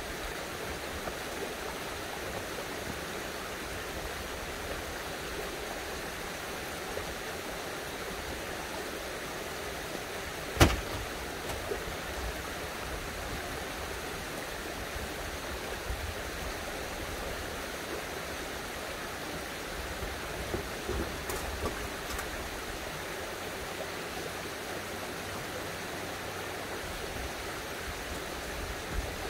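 Steady rush of running spring water. One sharp knock of stone on stone about ten seconds in, and a few faint clicks later.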